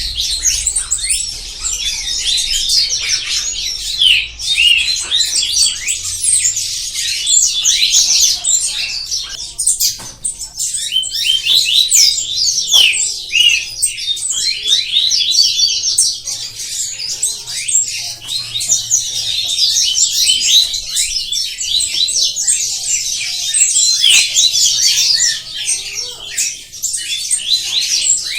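Songbirds singing and chirping without pause, in fast high overlapping trills and short notes.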